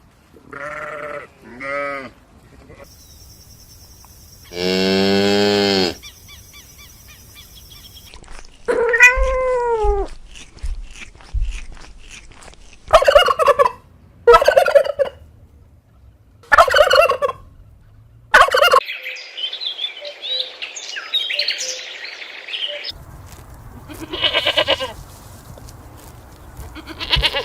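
A series of separate animal calls, mostly short and pitched, with one long drawn-out call about five seconds in. About twenty seconds in there is a busier stretch of overlapping calls.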